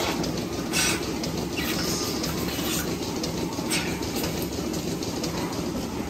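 Milking parlour machinery running with a steady drone and hiss from the vacuum and milking system. Two short, sharp hisses of air come about a second in and near the middle, as milking clusters are put on the cows.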